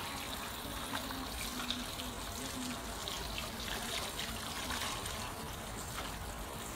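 Water from a salon shampoo basin's handheld hose running over long hair and trickling and splashing into the basin, with scattered small splashes and drips.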